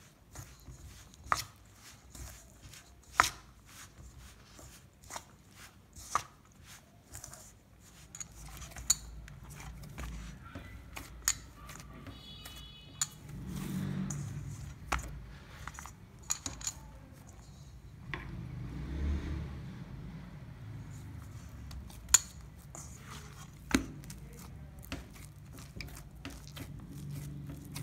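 A spoon clicking and scraping against a stainless steel bowl as flour and oil are mixed into crumbly dough, then hands kneading stiff dough in the bowl, with dull thuds as it is pressed and turned about halfway through and again a few seconds later.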